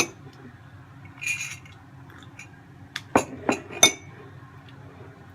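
A spoon clinking against a ceramic tea mug. There is one clink at the start, a ringing clink about a second in, then a quick run of four sharp clinks about three to four seconds in.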